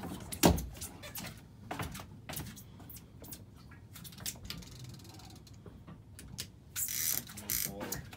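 Fishing reel being cranked while a small fish is brought in: irregular mechanical clicking, with knocks of tackle against the boat, the loudest about half a second in. A short rush of noise comes about seven seconds in.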